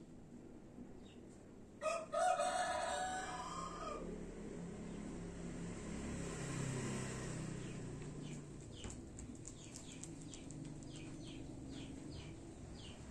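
A rooster crowing once, about two seconds in, the call lasting about two seconds. Later, a run of short, high chirps repeats about twice a second.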